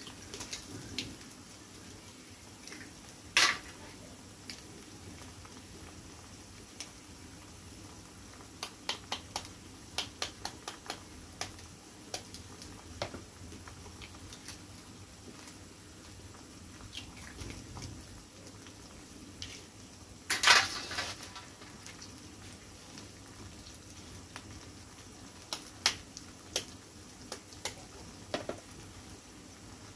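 Eggs being cracked open over an iron kadhai: a few sharp knocks, the loudest about 20 seconds in, with lighter clicks and taps between them, over a faint steady hiss from the pan on the wood fire.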